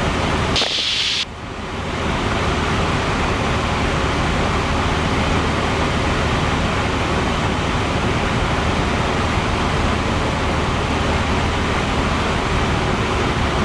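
Cessna 172's engine and propeller running steadily, a constant drone heard from inside the cockpit. About a second in there is a short hiss, and the drone dips briefly before coming back up.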